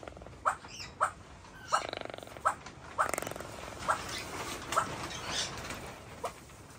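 Keel-billed toucan calling: a series of short, sharp croaks about one or two a second, with a couple of longer rattling croaks in the middle.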